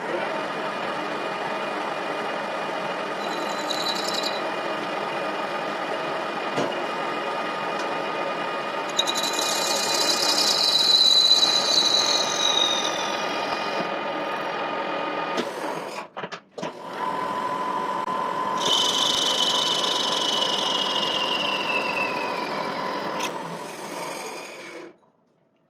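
General-purpose engine lathe running while cutting a thin-walled workpiece, a steady machine hum. Twice a high-pitched squeal rises out of the cut and slides down in pitch over a few seconds. The running cuts out briefly in the middle and stops near the end.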